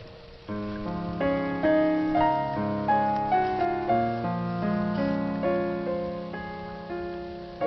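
Soft background piano music: slow, gently struck chords and melody notes that ring and fade, a new chord entering about half a second in.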